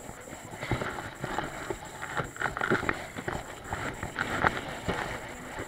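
Irregular clicks, taps and knocks of hands handling gear on a fishing boat's deck, over a steady low hum of the boat.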